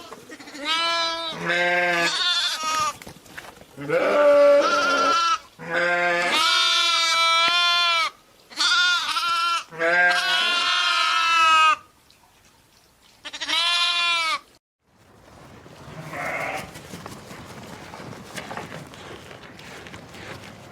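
Goat bleating: about six calls over the first fourteen seconds or so, some long and wavering in pitch. After the last call there is only a fainter, steady outdoor background hiss.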